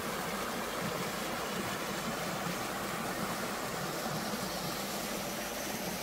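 Shallow mountain stream running over rocks and a small cascade, a steady rushing of water.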